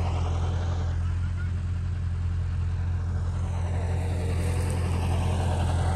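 John Deere tractor's diesel engine running steadily under load as it pulls a Jagatjit super seeder through paddy stubble, sowing wheat: a constant low drone with no change in speed.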